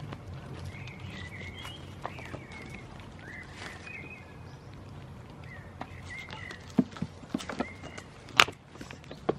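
Small birds chirping over a steady low rumble of outdoor background noise, with a few sharp knocks and clicks near the end.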